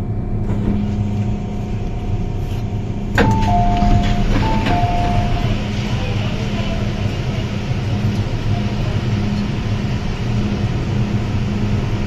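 MTR M-Train carriage running, with a steady low rumble and hum. About three seconds in, a click, then the train's two-tone chime plays twice, high then low, followed by a fainter onboard announcement.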